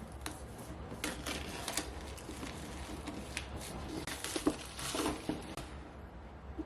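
Keychron V1 mechanical keyboard with tactile brown switches and PBT keycaps being typed on: irregular key clacks, trailing off about six seconds in.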